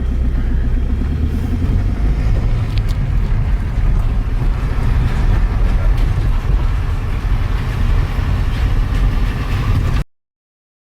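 Steady low rumble of a motor vehicle on the move, cutting off suddenly about ten seconds in.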